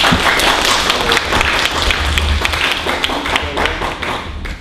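Audience clapping, a dense patter of many hands that eases off near the end.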